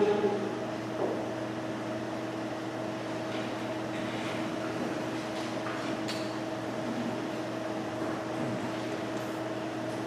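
Steady background hum holding a few level tones, with faint rustles and shuffles as the choir sits down.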